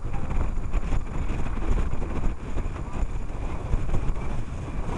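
Wind buffeting the microphone of a head-mounted camera: a low, uneven rumble that rises and falls in gusts.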